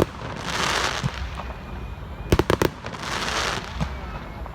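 Aerial fireworks bursting: a quick volley of three or four sharp bangs about two seconds in, each group of reports followed by a crackling, hissing shower.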